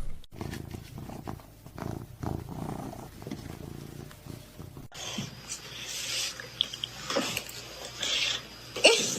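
A domestic cat purring, a low rhythmic pulsing, for about the first five seconds. It cuts off abruptly and gives way to a hissier recording with a few brief faint sounds.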